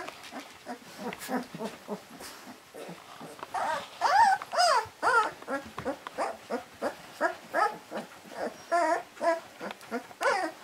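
Young puppies whimpering and squealing in many short, wavering cries that overlap, while nursing. The cries get louder and more frequent a few seconds in.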